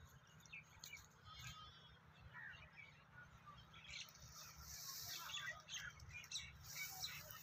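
Faint birds chirping and twittering, with a short trill about a second and a half in, over a low steady rumble.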